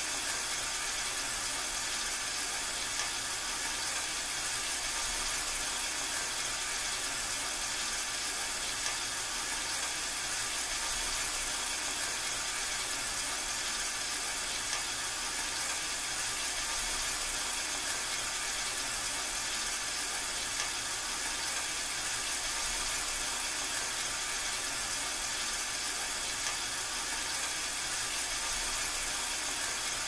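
Rain falling steadily: an even, unbroken hiss with no separate drops standing out.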